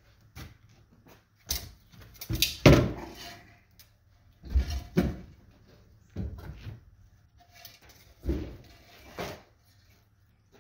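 A 161-pound welder armature being tipped over and shifted on a workbench: four groups of heavy thuds and scraping knocks, the loudest between two and three seconds in.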